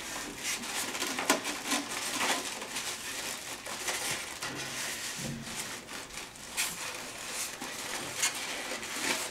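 Polystyrene foam packing blocks rubbing and scraping under the hands as the 3D printer is worked loose from them, with scattered light clicks and knocks.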